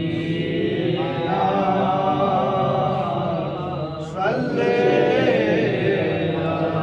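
A group of voices chanting the salawat (blessings on the Prophet) together as a drawn-out melodic refrain, in answer to the lead reciter's call.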